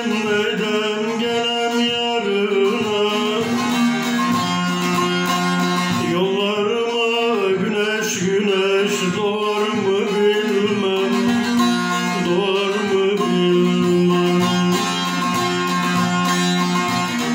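Bağlama (saz), a long-necked Turkish lute, played: a plucked melody wavering and bending over a steady drone.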